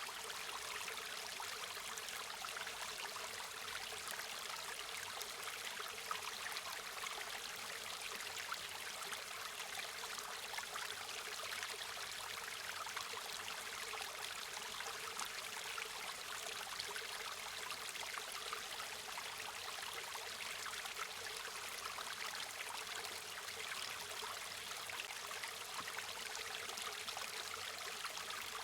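A river or stream flowing steadily: an even rushing of water with fine splashing and trickling, mostly in the upper range with little low rumble.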